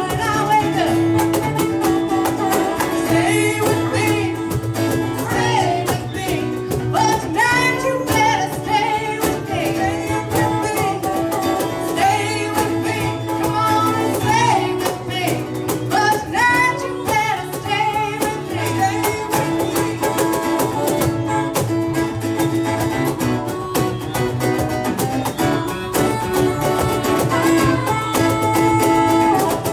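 Live band music: a woman singing lead over strummed acoustic guitars and a drum kit.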